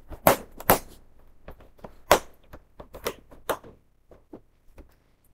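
Plastic retaining clips of a Samsung UN49KS8000F TV's back cover snapping loose one after another as a plastic spudger is run along the side edge. They make a series of sharp, irregular clicks, thinning out after about three and a half seconds.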